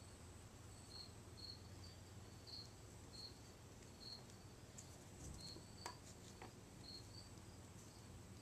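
Near silence, with a faint high chirp repeating irregularly, one or two a second, and a single faint click about six seconds in.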